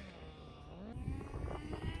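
Tamiya FS18LT glow engine with a TM2 muffler in a nitro RC car, its pitch falling to a low off-throttle burble, then rising again about a second in as the throttle is reapplied, with some irregular popping as it picks up.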